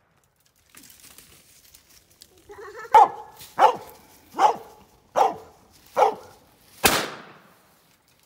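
A cur hound barking at a treed raccoon: five sharp barks about three-quarters of a second apart, then a single gunshot cracks out with a brief echo as the hunter shoots up into the snag.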